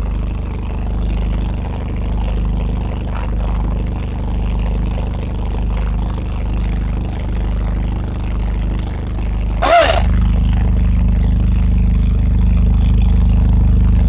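Case 480D backhoe's four-cylinder diesel engine idling steadily, heard from inside the cab. A brief sharp sound cuts in about ten seconds in, and the engine runs slightly louder after it.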